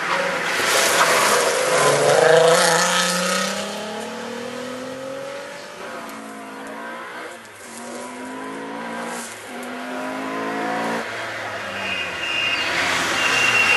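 Rally cars at full throttle on a tarmac stage, engines revving up and shifting through the gears, the pitch climbing and dropping back several times. The loudest stretch comes about two seconds in.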